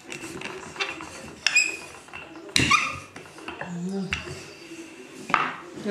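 Wooden rolling pin rolling out pierogi dough on a floured tabletop, with a few sharp knocks and clinks as it bumps the table and the dishes beside it.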